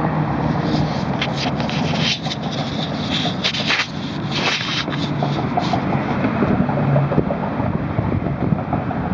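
Wind rumbling on the microphone. From about a second in to near the six-second mark, a run of close scraping and rubbing sounds from hands handling soil and a dug-up coin.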